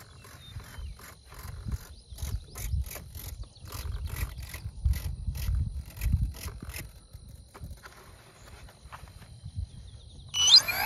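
Handling clicks and knocks as the foam-board RC model biplane is fitted together, with wind rumble on the microphone. Near the end the model's electronic speed control sounds its rising start-up tones through the brushless motor as the plane is powered up.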